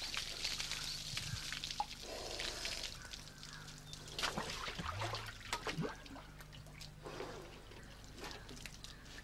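Water poured from a clay pot over a bather, splashing and dripping onto a wet stone slab in uneven gushes.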